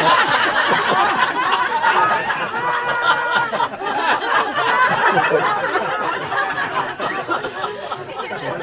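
A group of people laughing together, many voices overlapping, gradually dying down toward the end.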